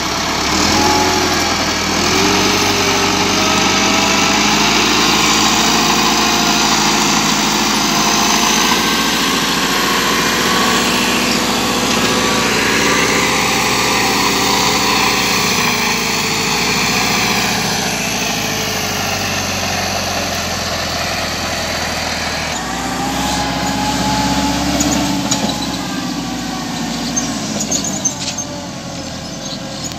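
Diesel farm tractor engines running, their speed rising and falling several times as they are revved.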